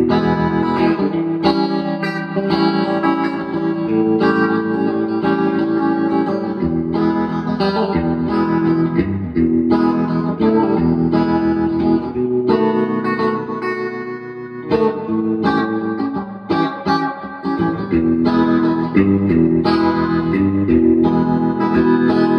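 Electric guitar played through a 1967 Fender Vibrolux Reverb tube combo amplifier, picking a continuous run of notes and chords as a play test of the freshly repaired amp.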